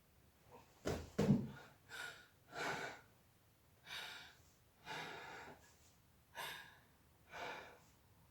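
A woman breathing audibly: two sharp gasps about a second in, the loudest sounds, then six heavy breaths about a second apart.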